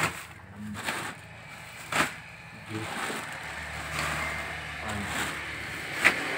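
Woven plastic sack and plastic-wrapped packets rustling and crinkling as the packets are packed into the sack by hand, with a few sharp crackles.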